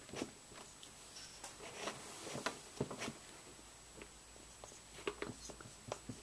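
Felt-tip marker writing on a whiteboard: faint, irregular scratching strokes with a few brief squeaks as letters are drawn.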